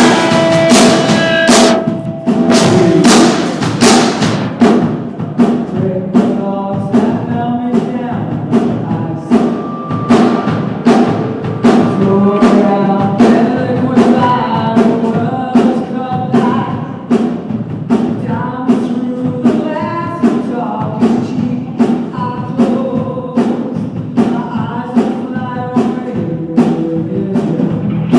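Pop-rock band playing live, a steady drum-kit beat under guitar and other instruments, with some singing. The sound is distorted, as recorded on a phone.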